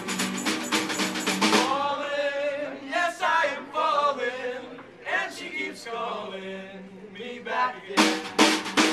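Live acoustic band playing, with strummed acoustic guitars, a small drum kit and male voices singing. About a second and a half in, the drums drop out, leaving a held guitar chord under the voices. The drums come back in near the end.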